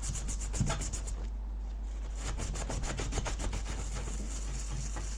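Scrubbing at a circuit board's solder joints to clean off flux residue. It starts with quick, even back-and-forth strokes, then turns to looser, irregular scratching about a second in.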